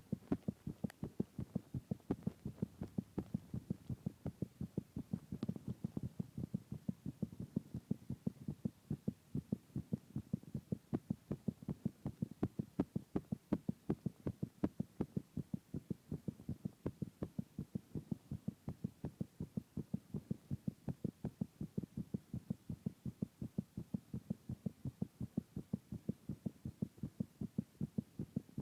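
A young man's heartbeat after drinking: a steady, even rhythm of short low thumps.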